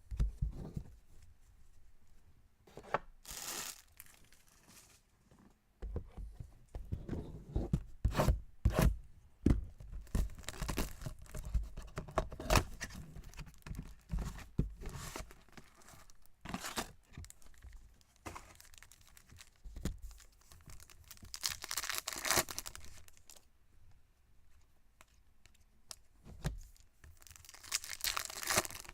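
Trading-card pack wrappers being torn open and crinkled, in several separate tearing bursts with rustling and clicking handling sounds in between.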